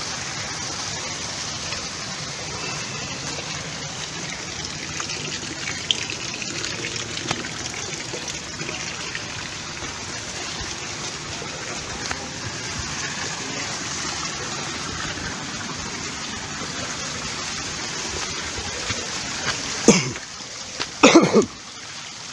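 Steady rushing of flowing stream water, with two short loud sounds near the end.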